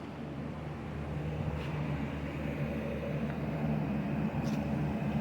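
Steady low mechanical hum from a running machine, with a couple of faint clicks.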